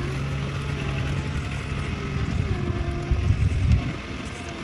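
Kubota DC-70 rice combine harvester's diesel engine running steadily, with a steady hum, and a brief louder, rougher low rumble about three seconds in.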